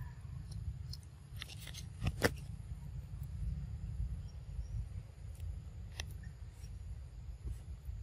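A steady low rumble with a few sharp clicks, a quick cluster about two seconds in and a single click about six seconds in.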